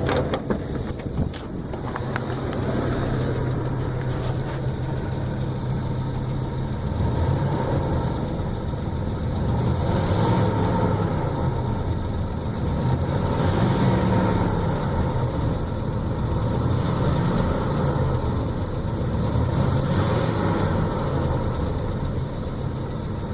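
1981 Buick Electra Limited engine idling steadily, its pitch wandering slightly up and down, with a couple of light clicks in the first two seconds. The owner says it sounds good and is kind of loud, and notes the engine is running rich and due for a tune-up.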